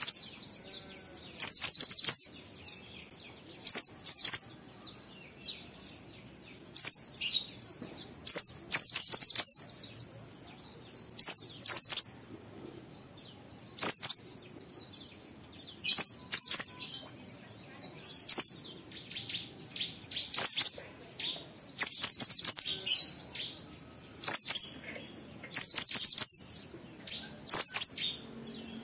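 White-eye (pleci) singing its 'ngalas' song, the five-beat style used as a lure to get other male white-eyes singing. It sings short bursts of several quick, high chirps, about one every two seconds.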